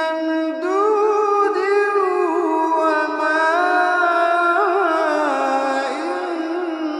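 Melodic Quran recitation in tajweed style: a single voice chanting long, drawn-out notes with wavering ornaments, the pitch rising and falling through the phrase.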